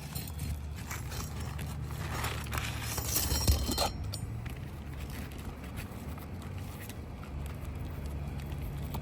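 Scraping and crackling of asphalt shingles as they are pried and worked loose to get at the nails, busiest a couple of seconds in, with a sharp knock about three and a half seconds in. A steady low rumble runs underneath.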